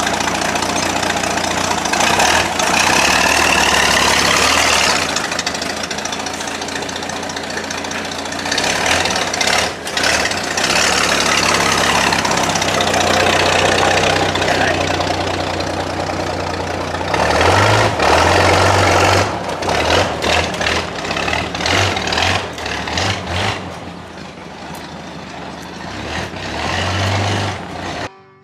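Old Chevrolet rat rod's engine running, revving up and easing back several times. It cuts off abruptly near the end.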